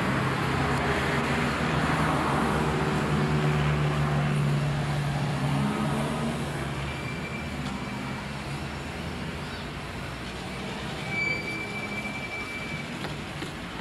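Road traffic: a motor vehicle's engine runs close by as a steady low drone, then fades about six seconds in, leaving a quieter traffic hum.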